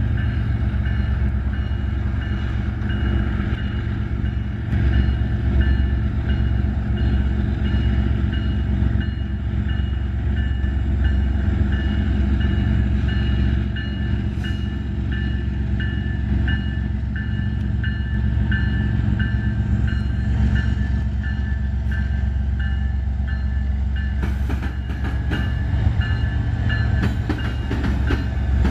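Union Pacific intermodal train led by an EMD SD70ACe diesel locomotive, its engine rumbling steadily as it approaches and passes close by. A grade-crossing bell rings at an even pace through most of the passage.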